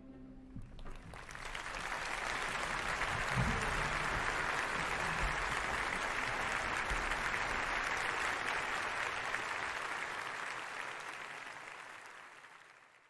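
A large audience in an open-air amphitheatre applauding, building up just after the last orchestral chord dies away, holding steady and then fading out near the end.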